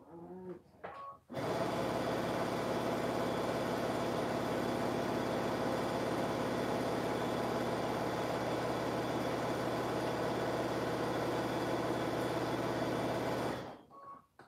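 Electric sewing machine running at a steady speed as it stitches a long seam, starting abruptly a second or so in and stopping near the end.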